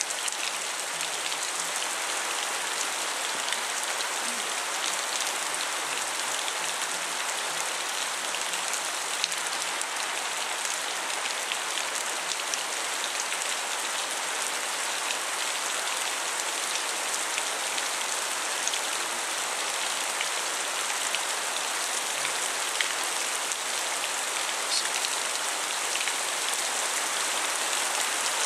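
Thunderstorm rain falling in a steady downpour, a constant hiss dotted with many small sharp drop ticks.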